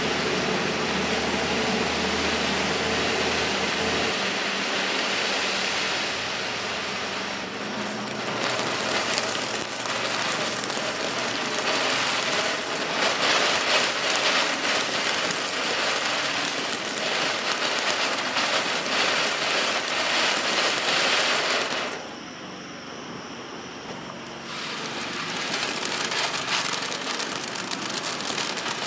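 Black Cat 7-inch fireworks fountains burning: a steady rushing hiss of sparks, thick with crackling through the middle. The hiss drops off for a couple of seconds about two-thirds through, then picks up again.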